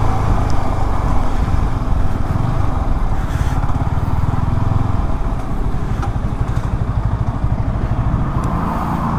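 Sport motorcycle's engine running at low road speed, heard from the rider's seat with wind and road noise, steady and easing off slightly near the end as the bike slows to a stop.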